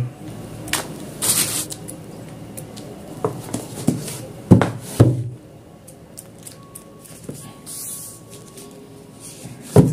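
A thick, heavy hardcover book being handled and moved about on a board: scattered knocks and handling noises, the two loudest about four and a half and five seconds in, with some light rustling.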